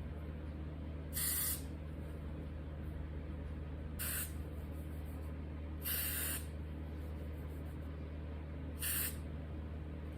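Hair spray being sprayed onto the wig's lace to hold it down, in four short hissing bursts a few seconds apart, over a steady low hum.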